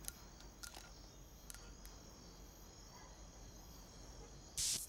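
Faint, even background hiss with a few soft clicks in the first second and a half, then a short, loud burst of high hiss lasting about a third of a second near the end.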